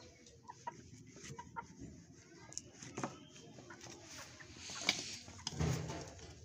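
Chickens pecking grain from a small plate: scattered light taps of beaks on the plate, with soft clucking, and one sharper tap about five seconds in.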